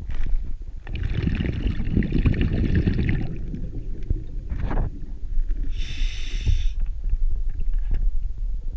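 Scuba diver's breathing heard underwater through the regulator: a long burst of exhaled bubbles rumbling and crackling for about two seconds, then a short inhalation hiss from the demand valve about six seconds in, over a steady low rumble of water moving past the camera.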